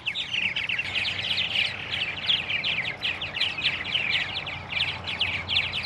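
Small birds chirping rapidly and without a break, many short falling chirps overlapping.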